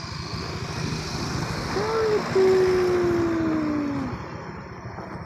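A voice calling out a drawn-out two-part call, a short note then a long note that slowly falls in pitch, over steady road noise.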